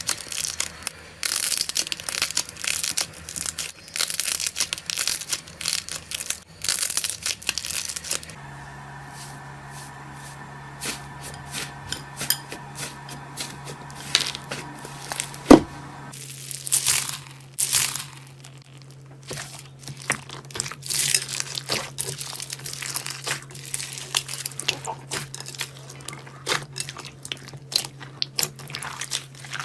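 Crunchy slime being squeezed and pressed by hand, giving dense crackling and popping clicks. About eight seconds in it turns quieter over a steady low hum, with one sharp snap near the middle, before the crackling picks up again.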